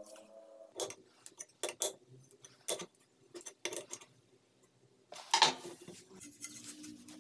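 Sharp metallic clicks and knocks as a square steel tube and its fastener parts are handled against a wooden block: about six separate clinks in the first four seconds, then a louder scraping clatter about five seconds in.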